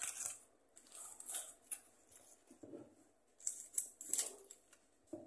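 Crinkling and crackling of a small plastic seasoning packet being torn open and handled, in several short bursts.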